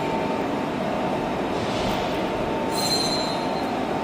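Heavy machinery running steadily, with a constant whine under a dense mechanical noise. A brief high-pitched squeal comes about three seconds in.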